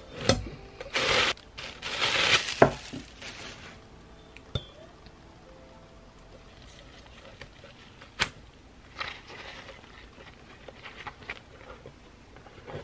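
Plastic bag crinkling and a glass bottle clinking against a metal strainer in the first few seconds, as the weight is lifted off straining yogurt. Then a few light clicks and a softer rustle of cloth, with soft background music throughout.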